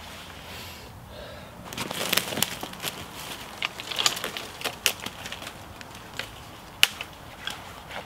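Dry leaf litter and twigs crackling and snapping underfoot and in the brush as a person moves through woodland undergrowth and handles a sapling: irregular crackles and clicks starting about two seconds in, with one sharp snap near the end.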